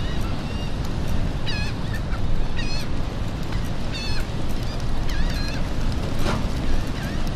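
Wind rumbling on the microphone, with birds giving short wavering calls every second or so over it. A brief knock comes about six seconds in.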